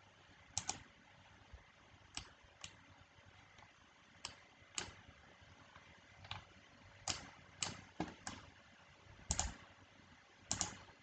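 About a dozen sharp, irregularly spaced clicks from a computer keyboard and mouse being worked, some in quick pairs, over faint room noise.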